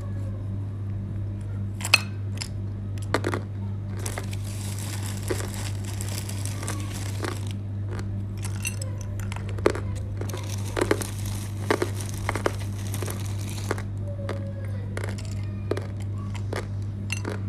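Close-up crunching of dry edible clay being bitten and chewed: irregular crisp crunches and crackles, a few sharply louder, over a steady low electrical hum.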